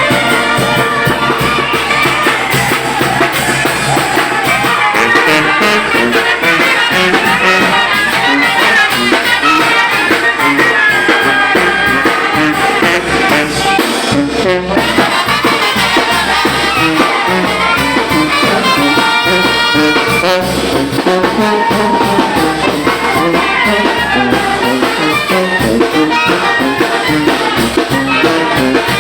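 Mexican brass band (banda de viento) playing, with trumpets and trombones carrying the tune over a steady beat.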